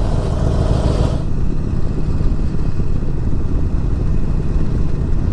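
Harley-Davidson Forty-Eight's air-cooled V-twin engine running steadily under way, with a brief rush of wind noise in about the first second.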